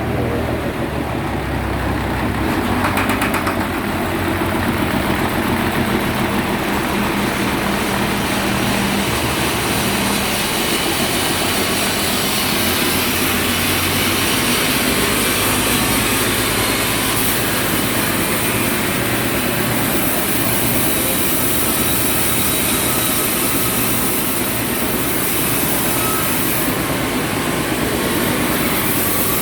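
Sawmill running: a steady engine hum under a loud, even rushing noise from the saw, the high hiss growing brighter about twelve seconds in.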